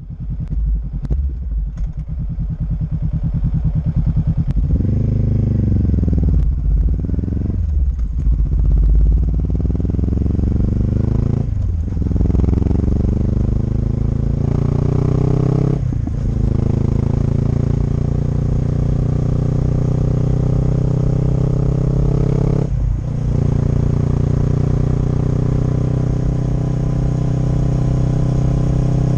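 Exhaust of a Honda CB500X's 471 cc parallel-twin engine as the motorcycle pulls away and accelerates, the pitch climbing and dropping back at each of several upshifts. It then settles into a steady cruise.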